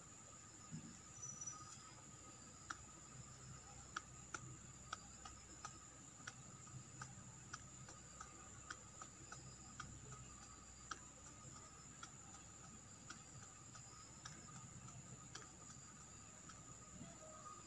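Near silence: a faint steady high whine under light hiss, with faint sharp clicks at irregular intervals, about one or two a second.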